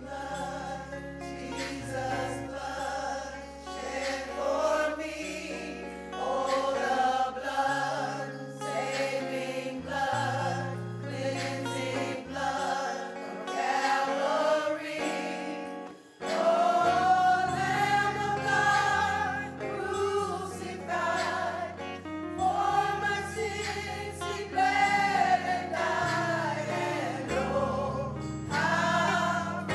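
Church choir singing a gospel song with instrumental accompaniment and sustained bass notes.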